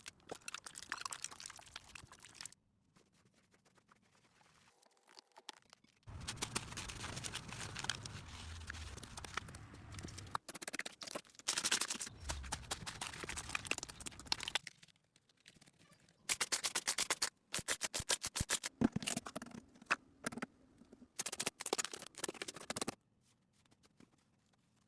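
Slime being squished and worked by hand: wet crackling and popping in short clips that start and stop abruptly, with runs of quick popping clicks in the second half.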